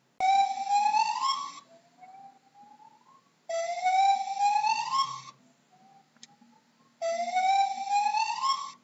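Gibbon calling: three loud whooping notes, each rising in pitch over about a second and a half, with fainter rising notes between them.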